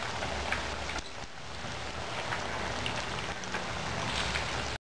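Chickpea falafel patties deep-frying in hot oil: a steady crackling sizzle. It cuts off abruptly near the end.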